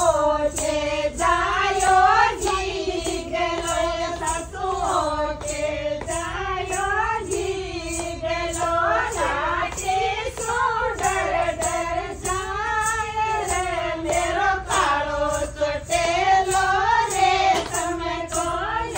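Women's voices singing a folk song together in one wavering melody line, over a steady beat of sharp taps.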